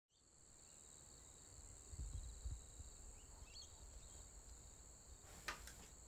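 Night insects chirping as a faint, steady high-pitched drone at two pitches, with a few low rumbles about two seconds in and a short, sharp click near the end.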